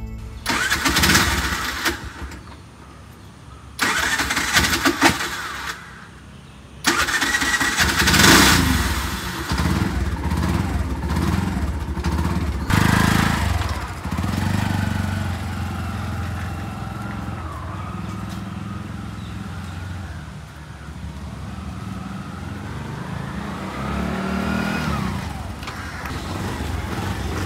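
Tuk-tuk (three-wheeled auto-rickshaw) engine starting: two short loud bursts, then from about seven seconds in it runs continuously as the tuk-tuk moves off slowly, its note rising and falling.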